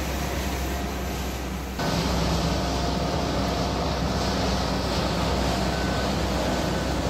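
Wheel loader's diesel engine running with conveyor machinery, a steady mechanical drone that turns abruptly louder and brighter about two seconds in. A few short, faint high beeps sound near the end.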